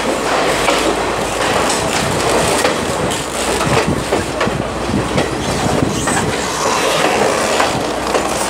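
Moving train carriage running along the track, heard from its open doorway: a steady loud rumble of wheels on rails with irregular clicks and knocks.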